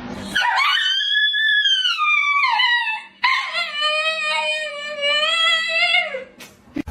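A pet animal giving two long drawn-out calls: the first rises and then falls in pitch, the second is lower and held steadier for about three seconds. A couple of short clicks follow near the end.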